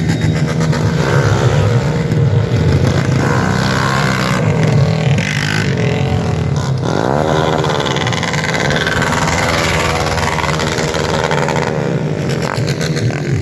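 Motorcycle engines revving high, their pitch rising and falling several times over a deep, steady rumble.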